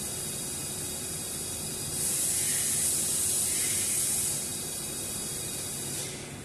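Hissing spray from a CNC machining operation, over a faint steady high whine. The spray grows louder about two seconds in for roughly two seconds, and the hiss drops away near the end.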